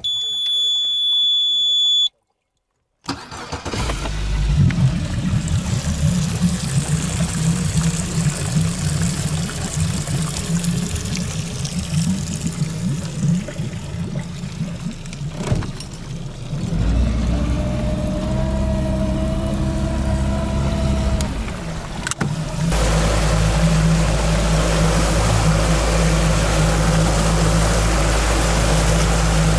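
A high electronic beep held for about two seconds, then, after a brief silence, an engine running with a steady low hum that shifts in pitch and loudness a few times.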